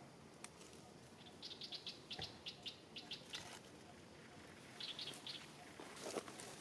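A small bird chirping: a quick run of short, high notes, about five or six a second, then a shorter run a little later. A soft rustle near the end.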